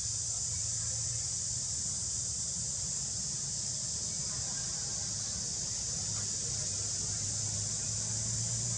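Steady high-pitched chorus of insects shrilling without a break, with a faint low hum underneath.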